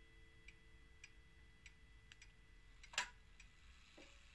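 Faint, steady ticking of a pendulum wall clock's movement, a little under two ticks a second, with one sharp click about three seconds in and a soft knock a second later as the clock's hands are turned by hand.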